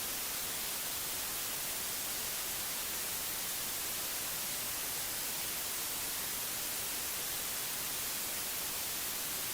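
Steady hiss of static, an even noise with no tones or rhythm, heavier in the high end and unchanging.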